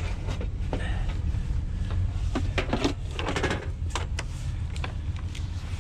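Scrap and electrical cords being handled: scattered clicks and knocks over a steady low rumble.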